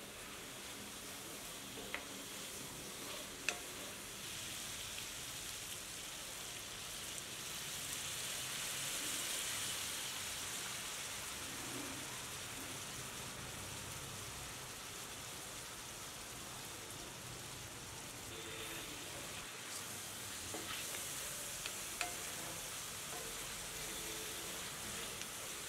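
Mutton pieces sizzling in oil and their own juices in a cast-iron skillet, stirred with a wooden spatula, with a few sharp clicks.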